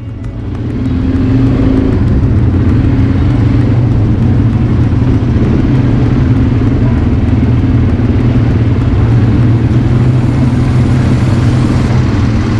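ATV quad bike engine running steadily while under way, loud and close, swelling up over the first second or so and then holding an even pitch.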